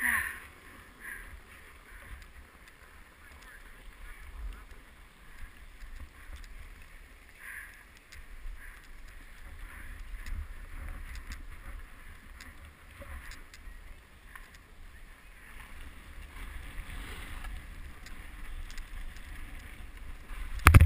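Skis sliding and scraping over groomed snow, with wind rumbling on the action camera's microphone. A burst of loud knocks comes at the very end.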